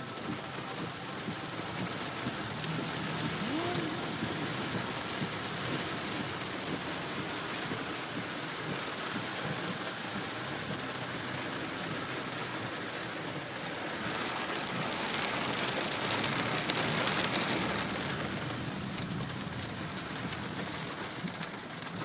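Heavy rain pouring down on the car, a steady hiss that grows heavier for a few seconds past the middle.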